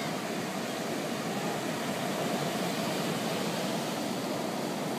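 Steady rush of surf: small waves breaking and washing up a sandy beach.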